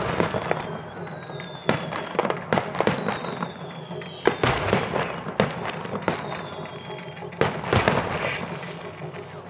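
Fireworks display: aerial shells bursting in a run of sharp bangs, the heaviest about four seconds in and near the end, with several slowly falling whistles overhead.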